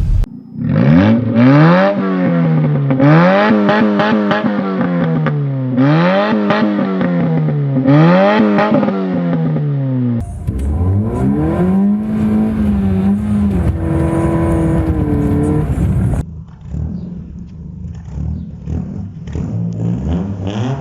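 Car engines revving through their exhausts in separate clips. The first is blipped up and down about four times, with crackles from the exhaust. The second revs up and holds, and the third runs quieter at low revs.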